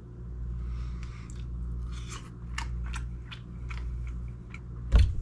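A person chewing a mouthful of canned herring fillet: a run of small mouth clicks and smacks. One heavy thump near the end.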